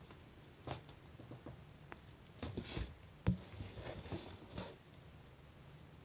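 Scattered soft scuffs and knocks of a kitten playing with a plush fish toy on the floor, with one sharper thump a little past three seconds in.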